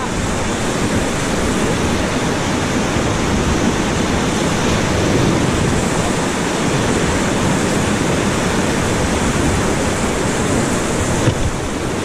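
Whitewater rapids rushing around an inflatable raft: a steady, loud rush of water.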